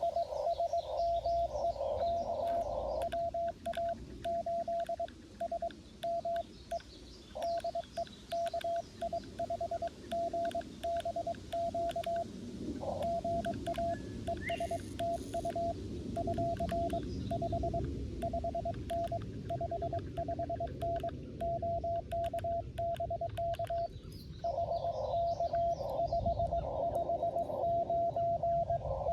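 Morse code beeping from a Xiegu G90 HF transceiver: one steady mid-pitched tone keyed on and off in dots and dashes during a CW contact, denser for the first few seconds and again near the end.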